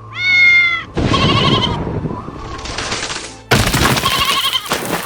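A cat's short high meow, then a run of noisy cartoon sound effects with a wavering, warbling tone. The noise starts again suddenly and loudly about three and a half seconds in.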